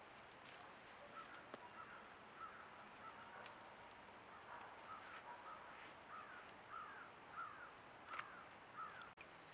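Faint series of short, repeated bird calls, about two a second, coming closer together and a little louder in the second half.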